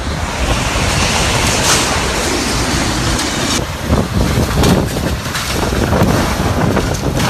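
Typhoon-force wind blowing hard and buffeting the microphone. From about halfway through there are several short knocks and clatters in the gusts.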